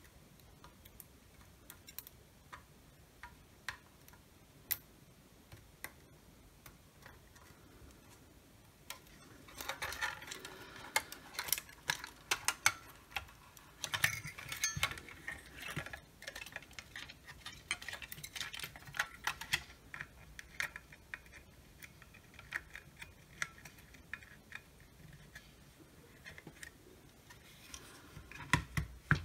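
Small clicks and plastic clatter from handling a thermal imaging multimeter's plastic case and circuit board while the camera module's ribbon cable is fitted. Scattered faint ticks at first, then a busy run of clicks and knocks from about ten seconds in to about twenty, then sparser clicks again near the end.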